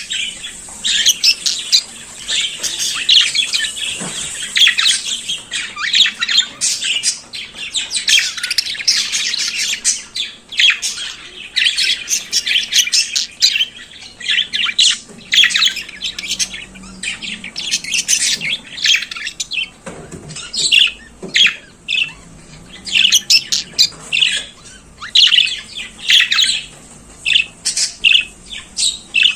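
Budgerigar warbling: a fast, dense stream of high chirps, squawks and chatter, thinning into shorter separate chirps in the second half.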